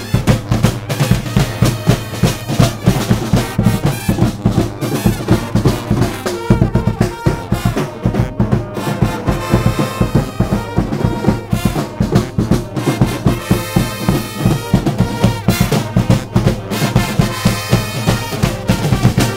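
Brass pep band playing an upbeat tune: trumpets, trombones, sousaphone, saxophones and clarinets over a fast, driving drum beat with bass drum and snare rolls. The horns come through more strongly from about halfway.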